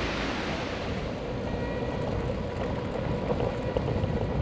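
Riding a scooter: wind and motion noise rushing over the microphone, with a faint steady whine underneath.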